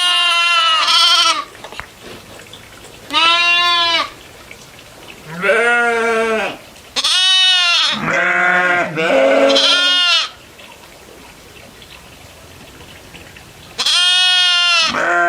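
Goats bleating: a series of separate calls, each rising and then falling in pitch, some higher and some deeper, with pauses of a second or more between them.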